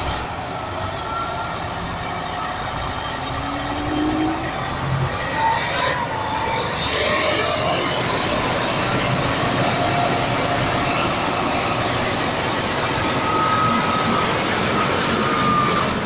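Komatsu D65P crawler bulldozer's diesel engine running with steel crawler tracks clattering, a steady mechanical noise as the machine moves.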